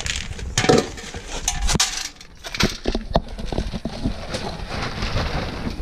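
Pelleted cattle feed rattling and pattering as it is scooped from a sack with a steel bowl and poured into plastic tubs, with clinks of the bowl against the tubs.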